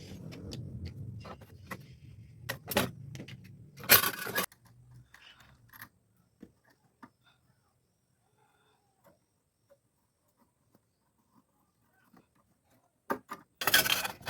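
Metal clinking and rattling from objects being handled: scattered sharp clicks over a low rumble, with one loud harsh clatter about four seconds in. A second loud burst of clattering comes near the end, after a quiet stretch.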